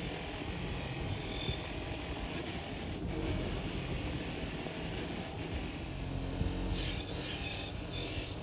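Bench grinder running with a wire wheel, scrubbing rust off the threaded screw and frame of an old Record No. 6 G clamp: a steady motor hum under the hiss of wire on metal, with a few louder scratchy bursts near the end as the wheel bites the frame edge.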